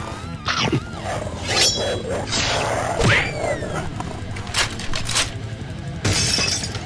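Cartoon-style fight sound effects dubbed over a toy battle: a rapid run of whooshes and hits, with a loud hit about three seconds in trailed by a falling tone, and a crash near the end.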